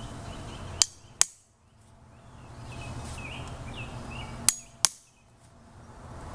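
Four sharp metallic taps in two pairs, about three and a half seconds apart: the retaining pin of a Henry .410 tubular magazine's end cap being tapped in until flush.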